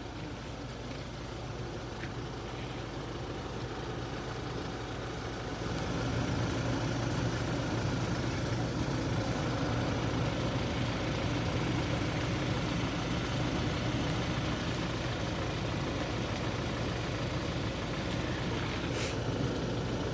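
A motor vehicle's engine idling: a steady low hum that grows louder about six seconds in and then holds.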